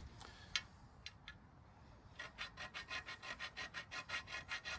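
Fast back-and-forth scraping strokes, about six a second, starting about two seconds in: a tool rasping across the antenna's mounting pole to score marker lines into it. A single sharp click comes about half a second in.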